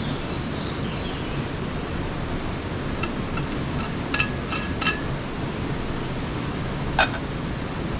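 Cooking at a camping gas stove: a steady hiss, with a few light metal clinks as a steel thermos is capped, and one sharp metal clink about seven seconds in as a pan lid is handled.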